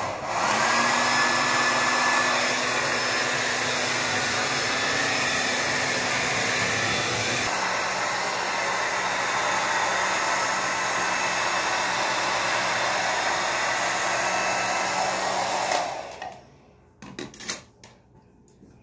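Handheld hair dryer switched on, its motor spinning up and then blowing steadily. Its tone changes about seven seconds in, and it cuts off about sixteen seconds in, followed by a few short clicks.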